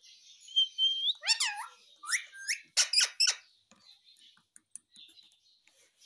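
Indian ringneck parakeet chirping and whistling: a held whistle that rises at its end, a few falling calls, then a quick run of short, sharp chirps, all in the first half or so, followed by faint small sounds.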